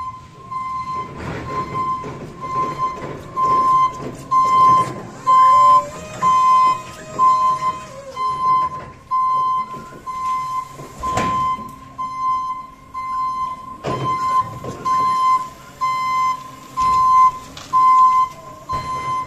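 Electric stand-up reach truck's warning beeper sounding a steady, high, repeating beep a little faster than once a second while the truck moves and works. The truck's motor whines for a few seconds in the middle, and there are two sharp knocks near the end.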